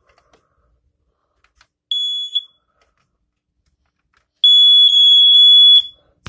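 Family Guard smoke alarm's piezo horn sounding during a test-button check. A high-pitched beep comes about two seconds in, then a longer sounding of about a second and a half near the end.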